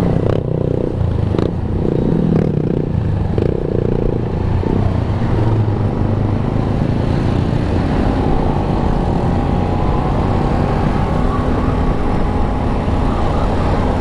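Classic Vespa scooter's two-stroke engine running steadily while riding.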